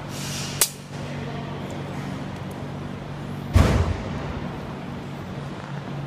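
A steady low hum, broken by a sharp click about half a second in and, about three and a half seconds in, a loud thump with a brief hiss that dies away within half a second.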